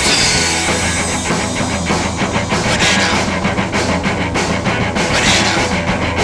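Loud, raw rock song with distorted electric guitar and a driving drum beat.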